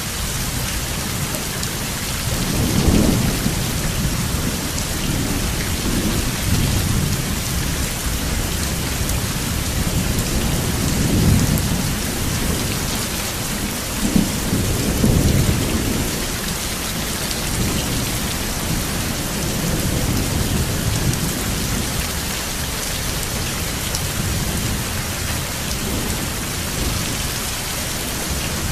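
Steady heavy rain falling, with rolls of thunder rumbling low several times: a thunderstorm. The loudest rumbles come about three seconds in and again around eleven to sixteen seconds.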